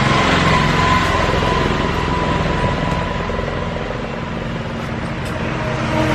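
Motor vehicle engine running steadily, with a high-pitched whine over it that fades out about two seconds in.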